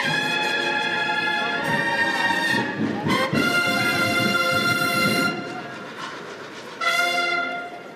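Procession band's brass playing a Holy Week processional march in long held chords. The chords break off a little past five seconds in, and a short chord returns near the end.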